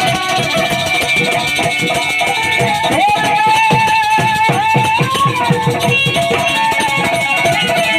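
Instrumental break of a Hindi devotional bhajan: a lead melody line with sliding notes over a steady drum beat.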